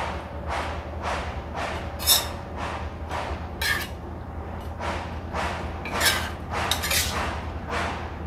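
A person sniffing in short repeated breaths, about two a second, smelling the galangal aroma of the freshly cooked dish, over a steady low hum.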